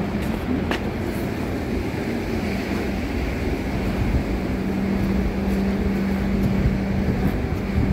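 Outdoor street ambience dominated by a steady low rumble of wind buffeting the microphone, with a low hum that comes in about two and a half seconds in and stops shortly before the end.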